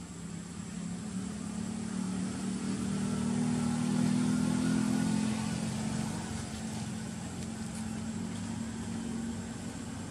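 A motor vehicle's engine passing, growing louder to its peak about four seconds in and then fading slowly.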